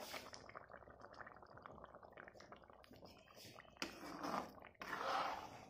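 Curry gravy bubbling and crackling at a simmer in a non-stick wok, with two louder swishes about four and five seconds in as a plastic spatula stirs through it.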